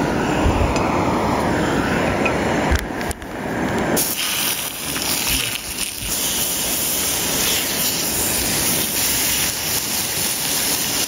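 Venison slices sizzling in hot oil in a skillet on a gas camp stove, a dense hiss that starts about four seconds in and runs on as sliced onion goes in. Before that, the stove burner and wind rumble on the microphone are heard.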